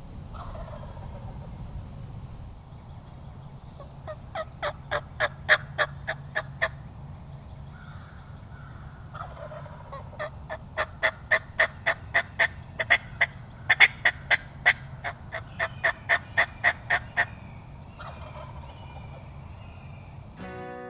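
Turkey yelping in three runs of short, evenly spaced notes, about four a second, over a steady low rumble.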